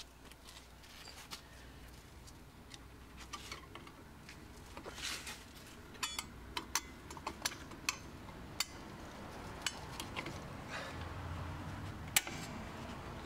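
Light metallic clicks and scrapes of long-nose pliers and a steel drum-brake return spring as the spring is stretched and hooked onto the brake shoe, with one sharper click near the end.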